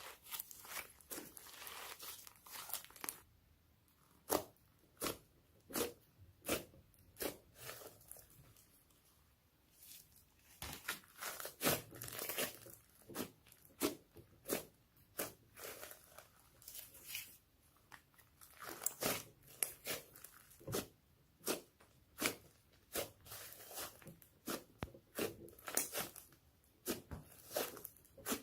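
Homemade slime being mixed and kneaded by hand, giving irregular sticky clicks, pops and crackles. The pops thin out for a few seconds near the start, then come thick again.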